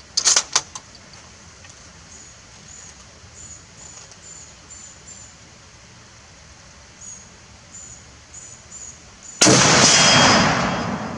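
A few short metallic clicks of the FN 1950 Mauser carbine's bolt being worked near the start. Then, a little over nine seconds in, a single loud .30-06 rifle shot from the carbine, its echo dying away over about two seconds.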